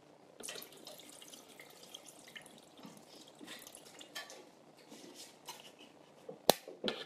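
Canned pineapple and its juice being tipped into a food processor bowl: liquid splashing and dripping with small irregular clicks, then a sharp knock near the end.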